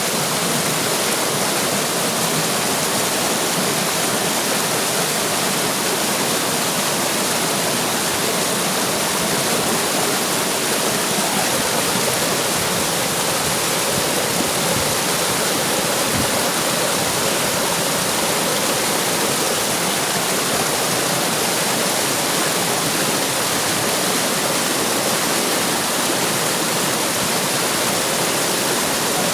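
Running water splashing steadily, a continuous even rush with no pauses.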